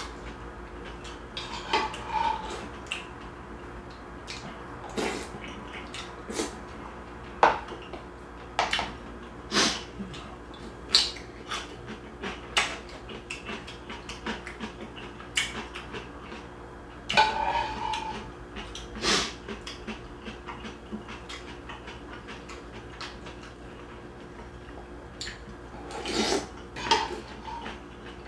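Metal spoon clinking against a ceramic soup bowl, a dozen or so sharp, irregular clinks as soup is spooned up, over a steady low hum.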